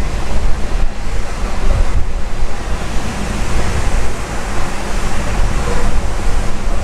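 Steady rushing, rumbling noise of air buffeting the microphone, loudest in the low end, with no distinct events.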